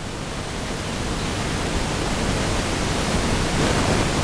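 Steady hiss of background noise across all pitches, growing gradually louder, with no distinct events.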